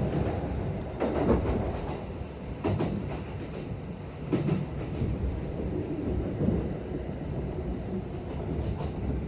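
Passenger train running at speed, heard from inside the carriage: a steady low rumble of wheels on rails, with occasional short clacks.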